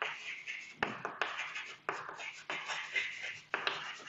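Chalk scratching on a chalkboard as words are written, a run of short scratchy strokes with brief gaps between them.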